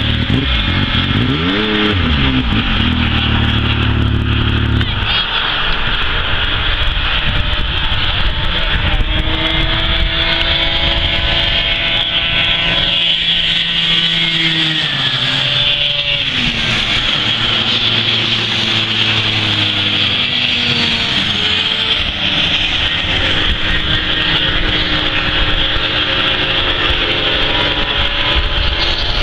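Several vintage two-stroke snowmobile engines racing at once, their pitches rising and falling as they rev and pass. A loud close engine stands out at first and cuts off about five seconds in.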